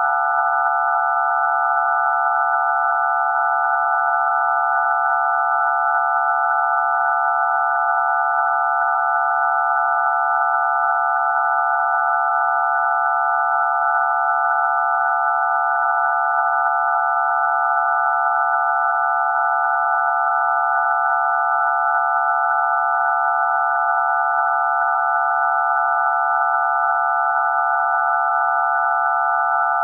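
DTMF telephone keypad tones for digits 0 to 9 mixed into one continuous tone: a loud, steady chord of several pure tones, the low group and the high group of touch-tone frequencies sounding together without a break.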